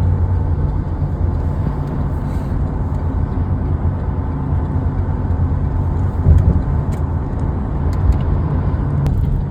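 Steady low rumble of a car driving, with road and engine noise, and a brief louder bump about six seconds in.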